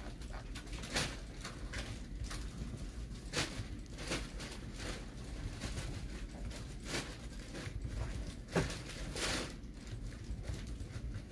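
Scattered light knocks and taps, about half a dozen at irregular intervals, over a low steady hum.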